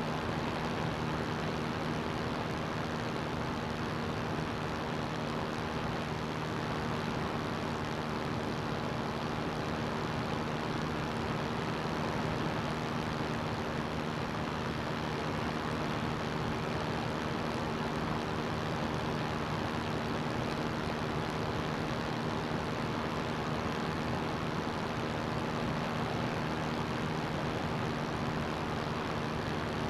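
CGS Hawk ultralight's engine and propeller running at a steady speed, an even drone with a constant rushing noise over it.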